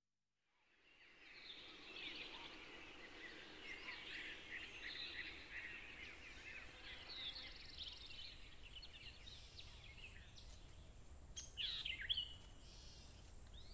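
Faint woodland birdsong: many small birds chirping together. It fades in over the first second or two, and a few louder, clearer calls stand out about two seconds before the end.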